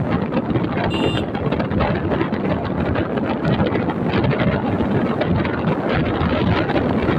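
Wind buffeting the microphone on a moving Hero HF Deluxe motorcycle, with its small single-cylinder engine running steadily underneath. A very short high beep sounds about a second in.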